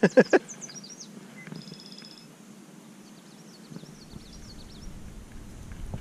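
Small birds chirping, with a short rapid trill about a second and a half in and more chirps a couple of seconds later. A low rumble comes in about two-thirds of the way through.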